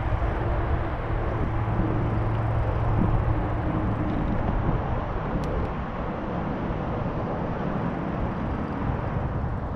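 Riding noise on a bicycle along a paved trail: wind on the microphone and tyres rolling, a steady low rush. A low steady hum sits under it for the first few seconds, then fades.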